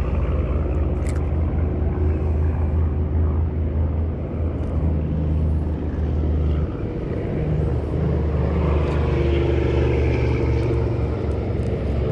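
A boat motor running steadily with a low hum, its tone shifting about halfway through.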